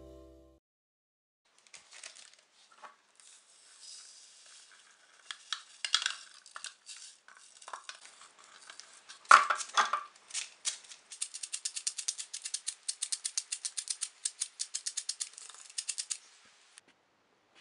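Metal flour sifter being worked over a plate to sift powdered milk: irregular metallic rattling and scraping, a louder knock about nine seconds in, then a fast, even run of clicks from the sifting mechanism for about five seconds before it stops.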